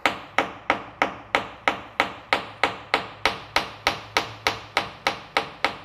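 Hammer tapping a wooden dowel peg into a drilled screw hole in a fiberglass boat transom, driving the plug home. Steady, even taps, about three a second.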